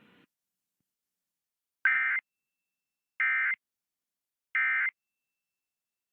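Emergency Alert System end-of-message (EOM) signal: three short bursts of SAME digital data tones, evenly spaced a little over a second apart. It marks the end of the alert message.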